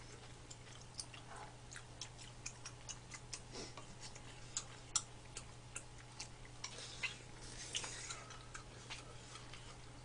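Quiet eating sounds: scattered small clicks of chewing and lip smacks, with light spoon and chopstick taps, over a steady low hum.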